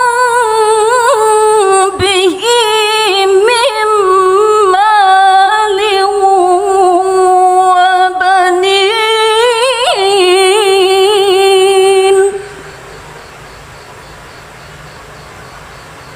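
A woman chanting the Quran in the melodic tilawah contest style, holding long ornamented phrases with a wavering pitch. Her voice stops about twelve seconds in.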